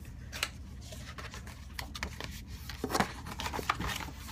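Cardboard and paper packaging being handled and opened by hand: scattered rustles and light taps, with sharper clicks about half a second in and again around three seconds in.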